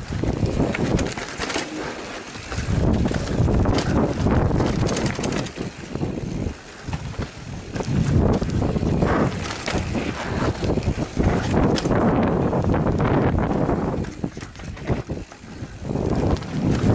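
Downhill mountain bike ridden fast over a dirt trail: wind rushing over the microphone and tyres on loose dirt, with the bike clattering and knocking over bumps. The rush swells and eases several times, dropping off briefly about two seconds in, around six seconds in and again late on.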